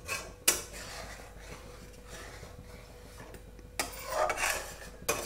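Flat metal spatula scraping and stirring in a metal kadhai, working the lumps out of milk thickened with milk powder. Irregular scraping strokes with a couple of knocks of the spatula against the pan, busiest about half a second in and again around four seconds in.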